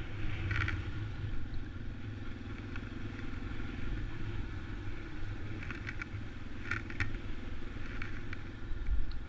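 2014 Yamaha XT250's single-cylinder four-stroke engine running steadily as the motorcycle rides along, with a few faint brief ticks.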